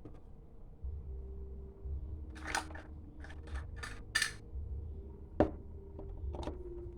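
Scattered clicks, taps and short rattles of hard parts being handled, with a sharp knock about five seconds in, over a low steady hum, as a washing machine's water inlet valve is being fitted.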